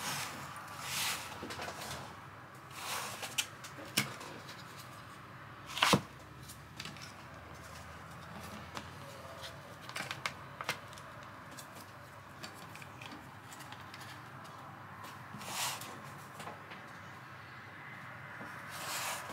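Handling noise as Bosch 12 V battery packs and a charger are set into a packing-foam holder on an MDF board: scattered plastic clicks and knocks, the loudest about six seconds in and a quick cluster around ten seconds, with a few short soft rubbing and sliding sounds between.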